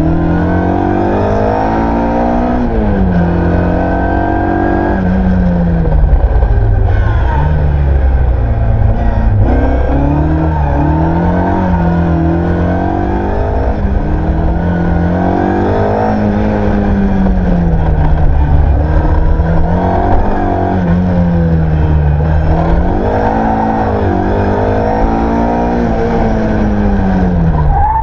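Ford Escort Mk1 rally car's engine heard from inside the cabin, driven hard: its pitch climbs and drops back again and again as the driver accelerates and lifts.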